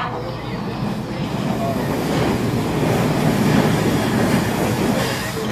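HO scale model train, a Santa Fe passenger train led by two steam locomotives, running across a model steel trestle. Its running noise grows louder as the locomotives come closest, peaking a little past halfway.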